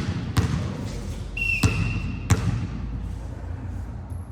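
Volleyball play on an indoor court: three sharp ball contacts over steady hall noise, with a steady high-pitched tone sounding for about a second in the middle.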